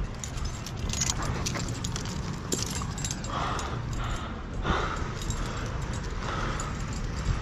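Climbing rack of carabiners and protection gear clinking now and then on a climber's harness as he moves, over a steady low rumble.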